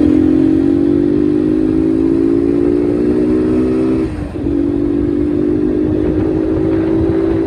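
Motorcycle engine running at speed, its note rising slowly as it pulls, with a short drop about four seconds in, typical of a gear change, before it picks up again; wind rush on the microphone underneath.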